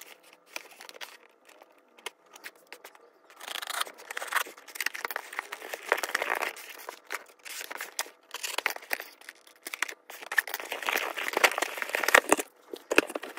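Cardboard shipping box being torn open by hand, with the cardboard tearing and the plastic film inside crinkling. Light handling for the first few seconds, then continuous tearing and rustling from about three seconds in.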